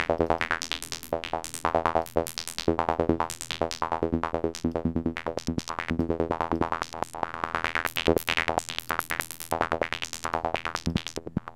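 Serum software synth playing a psytrance-style sequence: a sawtooth oscillator through a band-pass filter, its level chopped into rapid sixteenth-note pulses by an LFO. The filter is swept by other LFOs and chaos modulation, so the pulses keep changing in brightness.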